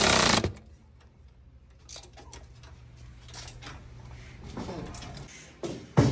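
Electric ratchet running a bolt tight on an ATV lift bracket, cutting off about half a second in. After it come faint clinks and taps of tools being handled, and one sharp knock near the end.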